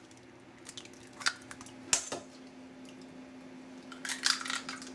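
Eggs being cracked into a bowl: a few sharp taps, then the shell crackling as it is pulled apart about four seconds in, over a faint steady hum.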